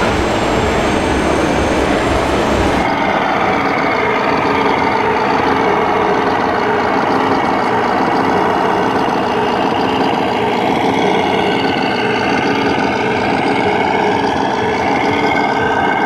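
Radio-controlled scale Volvo FH truck's sound module playing a diesel truck engine running, its pitch rising and falling as the truck drives. It starts about three seconds in, after a short stretch of even rushing noise that cuts off suddenly.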